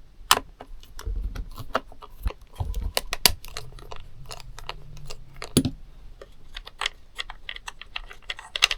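Irregular small clicks and taps of a screwdriver and metal and plastic parts being handled while screws are taken out of a motorcycle headlight and instrument cluster.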